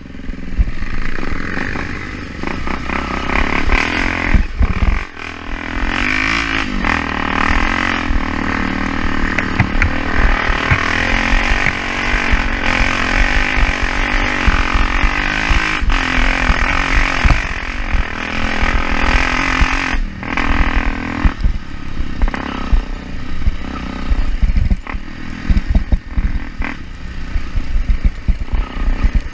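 Trail motorcycle engine running while riding, its pitch rising and falling with the throttle and easing off briefly about 20 seconds in. Heavy, uneven low rumble sits under it throughout.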